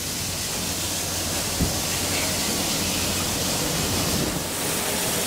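Class C58 steam locomotive (C58 363) standing with steam hissing steadily over a low hum, with one short knock about a second and a half in.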